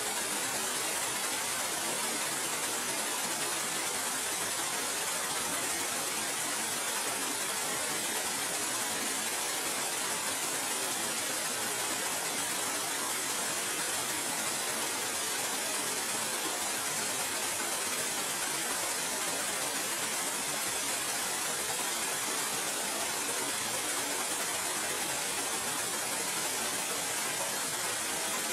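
Steady, even rush of flowing water, unchanging throughout.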